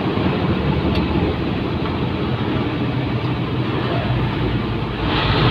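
Truck engine running steadily under load with road noise, heard from inside the cab while driving. A louder hiss rises near the end.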